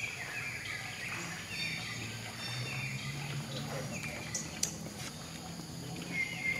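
Outdoor ambience with a string of short, high chirps that fall in pitch, over a steady high-pitched tone.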